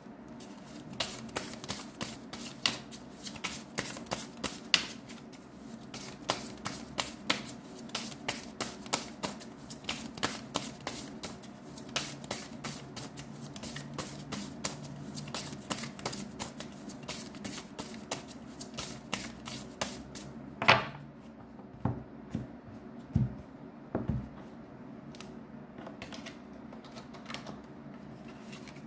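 A deck of tarot cards being shuffled by hand: a fast, dense run of crisp card clicks for about twenty seconds, then a few louder, separate taps and knocks.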